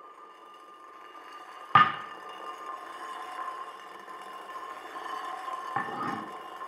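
Experimental electronic soundtrack: a sustained drone of steady high tones, with a sharp struck hit about two seconds in that rings out, and a second, softer hit near the end.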